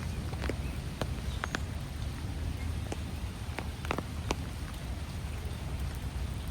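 Soft rain: scattered drops ticking irregularly over a steady low rumble.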